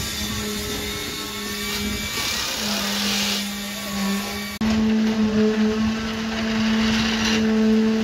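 Steady machine hum at an even pitch, a motor running without letting up, with a sudden step up in loudness about four and a half seconds in.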